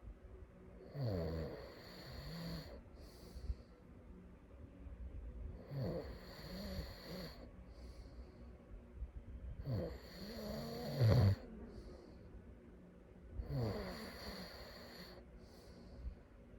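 A sleeping person snoring: four snores about four seconds apart, each with a rough, wavering pitch and followed by a short airy breath. The snore about eleven seconds in is the loudest.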